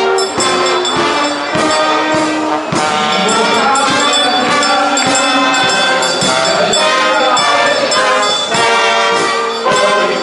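Carnival marching band playing a tune on trombones and trumpets over a drum beat.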